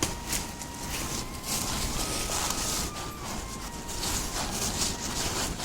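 Footsteps and rustling through dry leaf litter, an uneven scuffing noise, with a faint thin tone in the background that shifts pitch a few times.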